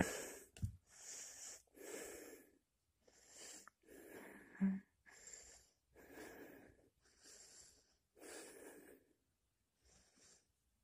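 Faint breathing close to the microphone, a soft breath about every second, with one brief louder sound about halfway through.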